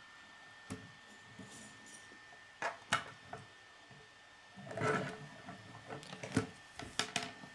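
Plastic K'nex pieces clicking and snapping as rods are pushed into a connector, in irregular sharp clicks with some rustling handling of the parts about five seconds in.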